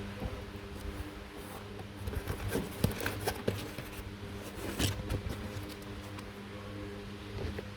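Light rustling and small clicks of stickers and packaging being handled, thickest in the middle, over a steady low electrical hum.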